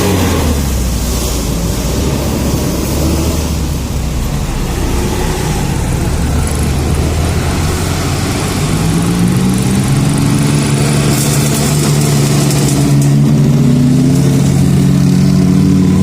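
Bus engine running, then from about halfway its pitch rises slowly and it gets a little louder as it picks up speed.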